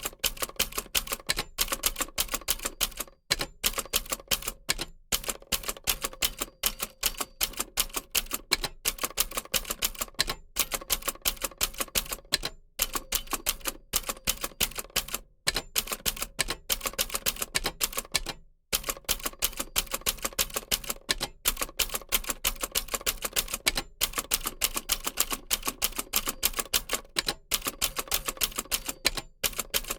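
Typewriter being typed on quickly: rapid key strikes, several a second, broken by short pauses every two or three seconds.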